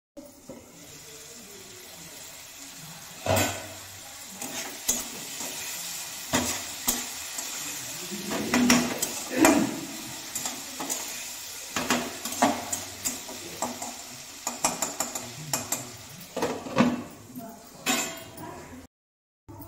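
Potatoes frying in mustard oil in a metal kadhai, a steady sizzle, while a metal spoon stirs and scrapes them with repeated clinks and knocks against the pan. A metal lid is lifted off and set back on.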